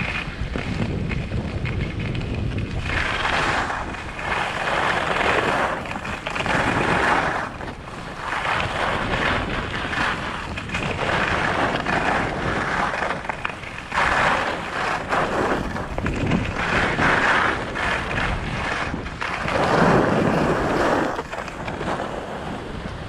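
Skis sliding and carving on groomed snow, a scraping hiss that swells again and again with the turns, over wind buffeting the GoPro's microphone.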